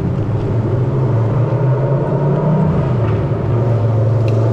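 A vehicle engine running steadily, a loud low drone with rumble underneath.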